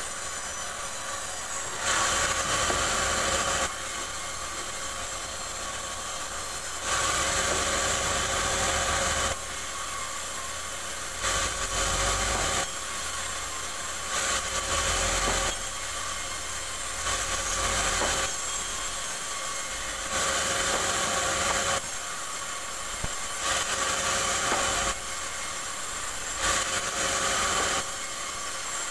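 Band saw blade cutting rubberwood logs into boards: the saw runs steadily with a high whine, and it grows louder and harsher for a second or two each time the blade is in the wood, about every three to five seconds.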